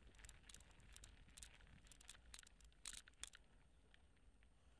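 Near silence: faint room tone with scattered soft clicks and crackles.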